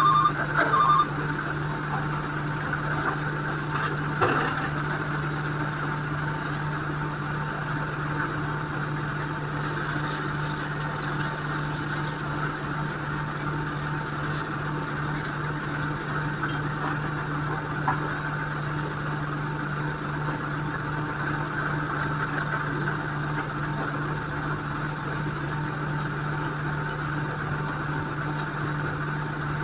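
Heavy construction machinery's diesel engine running steadily, with a few short beeps in the first second and a single clunk about four seconds in.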